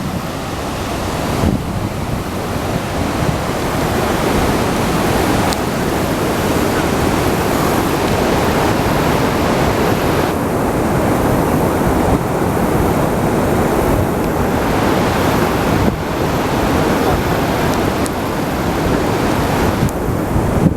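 Niagara Falls' falling water making a loud, steady rush, with wind buffeting the microphone.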